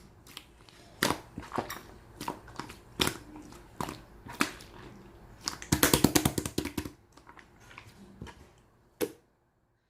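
Brown slime being squished and pressed by hand, giving irregular sticky clicks and pops, with a quick run of crackling clicks about six seconds in. A last pop comes about nine seconds in, then the sound cuts off.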